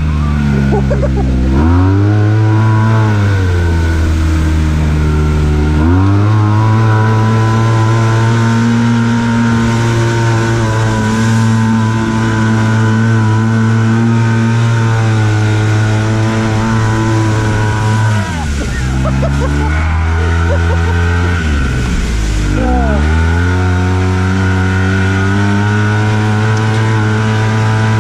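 Arctic Cat Wildcat Trail 700 side-by-side's twin-cylinder engine running hard under throttle. Its pitch drops and climbs back four times as the throttle is lifted and reapplied: at the start, around five seconds in, and twice in the last third.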